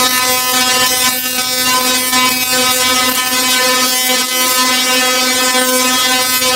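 Tesla coil firing: a loud, steady buzzing tone with a crackling hiss from the sparks arcing between its dome and the grounding rings, cutting in abruptly.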